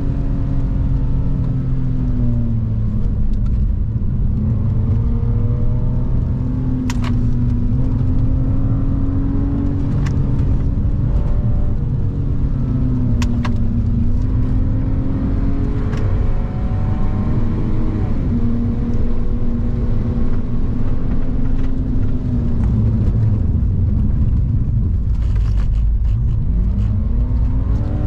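A BMW E46 330i's 3.0-litre straight-six heard from inside the cabin, held high in the revs around 5,000–5,700 rpm, its pitch dipping and climbing again as the car goes through corners, over a steady low rumble of tyres on wet tarmac. A few sharp clicks are heard along the way, and near the end the engine pitch climbs again.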